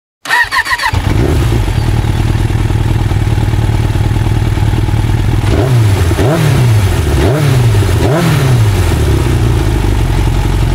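A Yamaha SZ16 motorcycle's engine is started with a brief crank, settles into a steady idle, and is revved in several short throttle blips in the middle before dropping back to idle.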